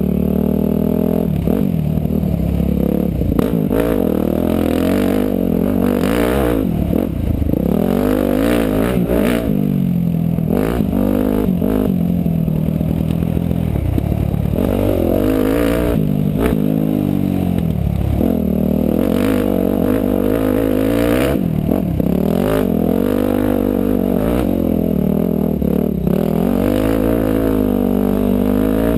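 Motorcycle engine running under load, its pitch rising and falling again and again as the throttle opens and closes, with scattered knocks and clatter throughout.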